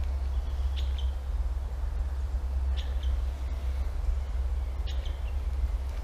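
A bird calling three times, short high chirps about two seconds apart, over a steady low rumble.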